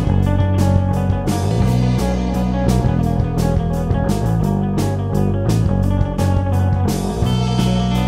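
Live rock band music: guitar over a drum kit keeping a steady beat with regular cymbal hits, and deep sustained low notes underneath.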